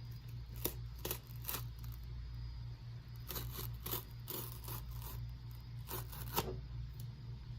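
GoPro HERO8 retail box being handled and opened: scattered rubs, scrapes and light knocks of the packaging, over a steady low hum.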